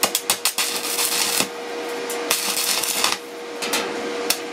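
Stick (MMA) electrode welding arc crackling and hissing in stuttering bursts on thin sheet steel, with a filler rod fed into the puddle. The arc breaks off briefly about three seconds in, then strikes again.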